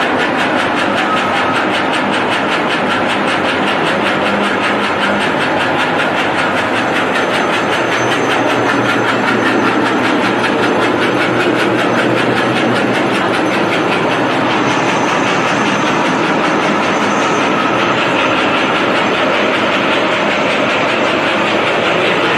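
Workshop machinery running with a loud, steady, rapid mechanical clatter.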